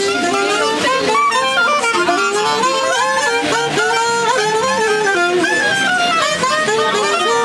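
Instrumental background music: a melody moving in steps over sustained chords.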